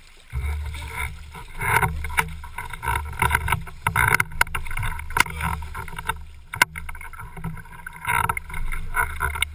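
Water splashing and sloshing around a windsurf board and rig as a windsurfer in the water hauls himself back up by the boom, over a low rumble of wind on the boom-mounted camera's microphone. Several sharp clicks and knocks, the loudest about two-thirds of the way through.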